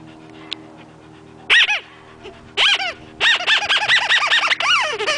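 Dog whining in high yelps that rise and fall in pitch: one, a pause, another, then a quick run of about eight in a row.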